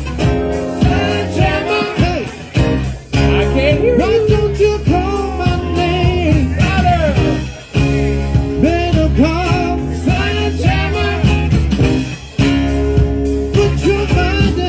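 Live rock band playing: a steady, heavy bass line and drums under a lead melody that bends and slides in pitch, with short breaks in the groove about every five seconds.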